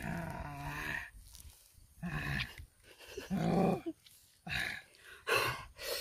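A series of about five short pitched vocal calls, each under a second long, with brief gaps between them.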